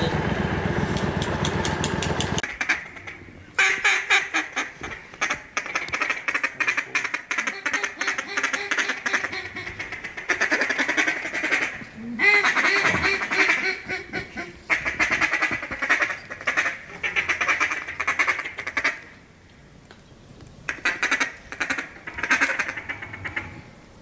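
A boat's outboard motor running, cut off about two and a half seconds in. Then duck quacking and fast chattering in repeated bursts with short pauses.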